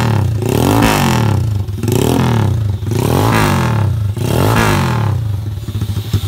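Honda EX5 Class One single-cylinder four-stroke engine with a 58 cylinder block, revved through an aftermarket exhaust in repeated throttle blips about once a second, each one rising and falling. It drops to a pulsing idle near the end.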